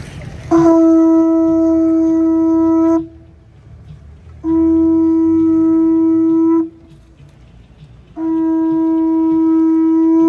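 Conch shell trumpet blown in three long, steady blasts at the same pitch, each about two to two and a half seconds long, with short pauses between them.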